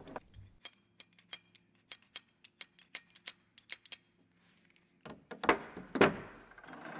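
Small metal wrench parts clicking and clinking as they are handled: a quick series of light, sharp clicks, then a pause and a few louder, longer rubbing sounds near the end.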